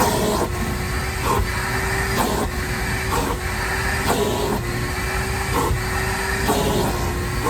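Shop vac running with a steady motor whine while its nozzle is worked back and forth, making a short stroke about once a second.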